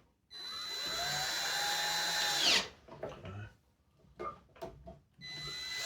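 Cordless power drill run in two bursts of about two seconds each, with a steady whine that winds down in pitch each time the trigger is released and a few light clicks of handling between them.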